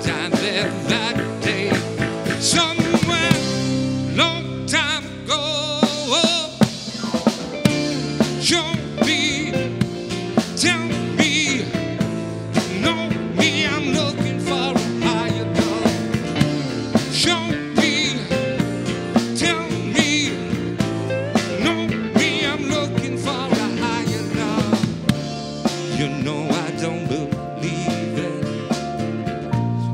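Live rock band playing an instrumental passage: electric guitar lead with wavering, bent notes over strummed acoustic guitar, bass guitar and a drum kit keeping a steady beat.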